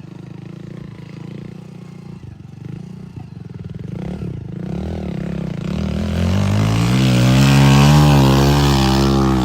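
Heavy machine's diesel engine running steadily at low revs, then revving up from about four seconds in. The pitch wavers as the revs are held high, and it is loudest near the end.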